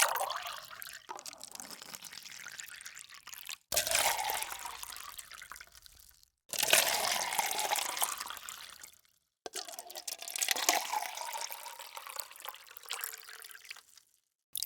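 Water splashing and bubbling into a cup in a series of separate takes. Each take starts suddenly loud and fades over a few seconds, and brief silences cut between them.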